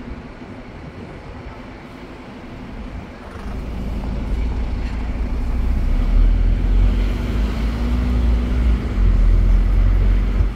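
A sightseeing bus driving through city traffic, heard from its open top deck: a steady engine hum with road noise. About three and a half seconds in, a deep rumble builds and grows loud, then drops away suddenly near the end.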